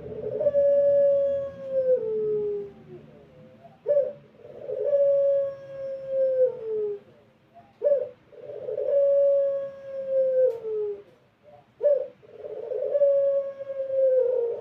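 Puter dove (Barbary/ringneck dove) giving its long drawn-out coo four times, about every four seconds: each call a short clipped note followed by one long held note that sags at the end.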